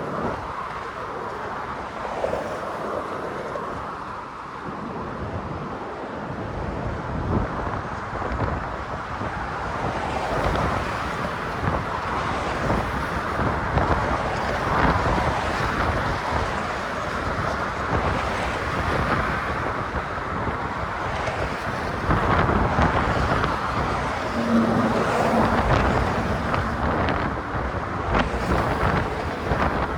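Steady stream of motor traffic passing on the bridge roadway, with wind buffeting the microphone throughout.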